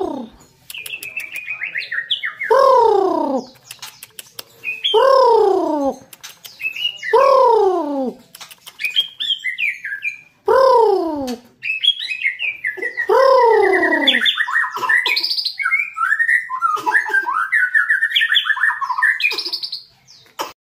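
A white-rumped shama (murai batu) singing. Loud whistles slide downward, about one every two seconds, and quick high chattering phrases fill the gaps between them. In the last few seconds the song becomes a run of fast high chirps, which stops about twenty seconds in.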